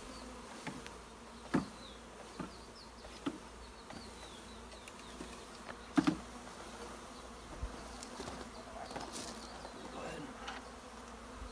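Honeybees buzzing, with several sharp knocks as the wooden bee package is tapped against the top bar hive to shake the bees out; the loudest knock comes about six seconds in.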